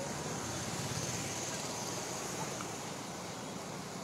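Motor vehicles driving through a flooded street, wheels pushing through deep standing water, heard as a steady wash of water and traffic noise.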